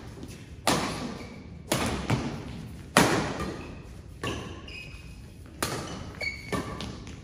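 Badminton rackets striking a shuttlecock back and forth in a fast doubles rally: sharp cracks about once a second, each ringing on in the echo of a large hall.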